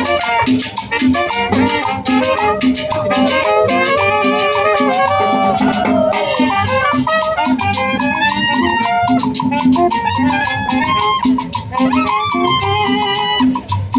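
Live street band playing Latin dance music: trumpet and other horns carrying the melody over a steady drum beat.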